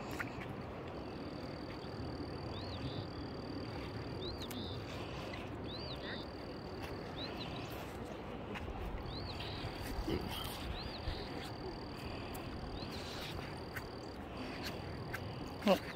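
Frogs calling in a steady, high-pitched chorus, with short chirps recurring over it. A brief louder sound breaks in just before the end.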